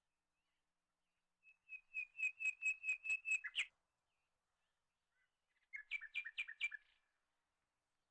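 A bird singing two phrases of quick, repeated whistled notes, about four or five a second: a longer run of about ten notes that grows louder, then after a pause a shorter run of about five.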